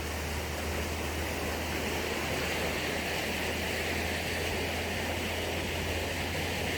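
Steady rushing outdoor noise with a low rumble underneath, unchanging throughout.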